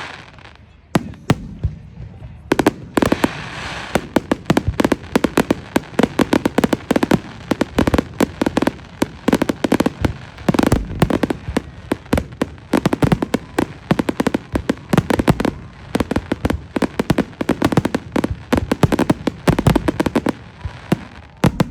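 Firework display going off: a dense barrage of bangs and crackling reports, many per second, building from a few scattered bangs to a continuous volley about two and a half seconds in and easing just before the end.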